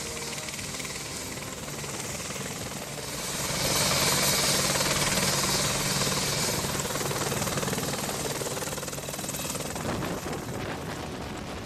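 AH-64 Apache attack helicopter flying low past, its rotor beat and engine noise swelling to a peak as it passes nearly overhead about four seconds in, then fading as it flies away.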